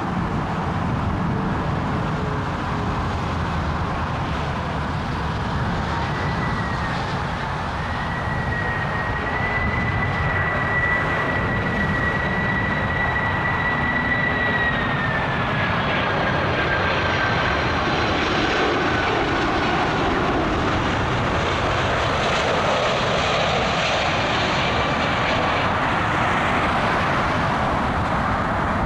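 Jet airliner's engines: a high whine holds steady, then drops in pitch about halfway through, over a wide roar that swells toward the end.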